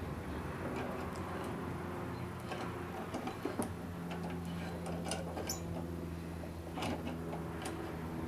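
Light, irregular metallic clicks and ticks from tightening the vise's small bolts with a 10 mm socket and handling its parts, over a faint steady low hum.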